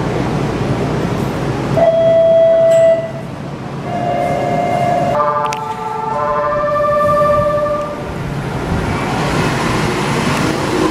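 Electronic signal tones at a suspended monorail platform: a steady beep about two seconds in, then a wavering tone, then after a click several tones held together for a few seconds, typical of a departure signal. Near the end the monorail car's running noise rises as it starts to move off.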